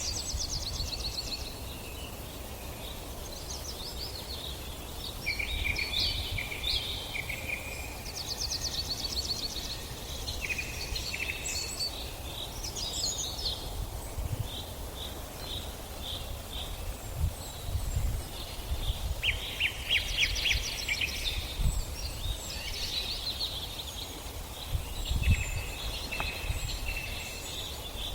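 Several birds singing at once, with rapid chirping trills coming and going, over a low rumble.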